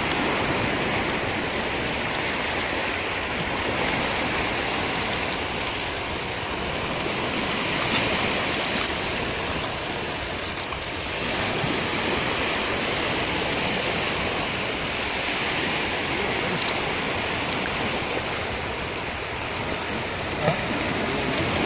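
Surf washing steadily onto a sandy beach, an even rushing noise, with a brief knock near the end.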